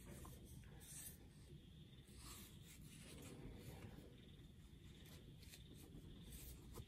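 Near silence with faint, intermittent rustling and rubbing of fingers handling a fabric-covered back protector and its tags.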